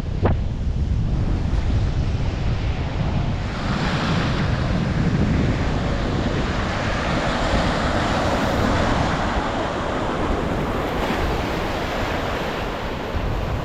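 Waves and rushing water, with wind buffeting the microphone. The water noise swells about three and a half seconds in and stays up.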